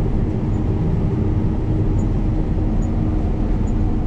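Combine harvester running steadily while cutting soybeans: an even, low drone with a faint steady hum.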